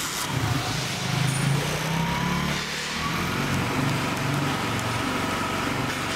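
A 70cc single-cylinder four-stroke motorcycle engine starting up about a third of a second in, running louder for the first couple of seconds and then settling to a steady idle.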